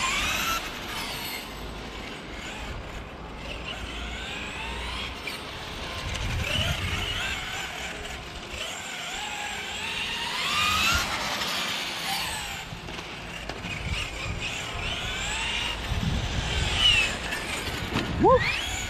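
Brushless electric motor and drivetrain of an MCD XR5 radio-controlled car (SSS 230KV motor, 20S) whining, its pitch gliding up and down as the car accelerates and slows. Near the end a few short, sharp rising whines are louder as the car is driven close by.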